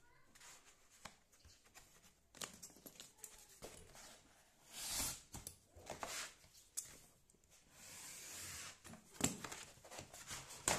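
A sheet of stiff duplex cardboard being handled and worked: faint, irregular rustling and scraping strokes, the loudest about five seconds in. Near the end there are a couple of sharp clicks.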